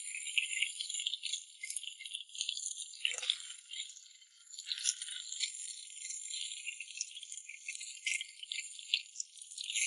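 Hot oil sizzling and crackling in a wok as small whole fish shallow-fry, with a spatter of fine irregular pops throughout.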